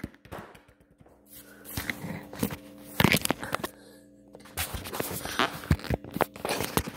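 Handling noise from a phone held close to the microphone: irregular rubbing, scraping and sharp knocks, loudest from about three seconds in, over a faint steady hum.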